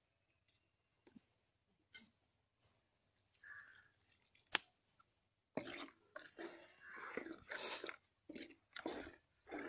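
A sharp metal clink, then from about halfway a run of short, irregular scraping and splashing sounds: liquid being poured into a large pot of crab curry and stirred with a metal ladle against the pot.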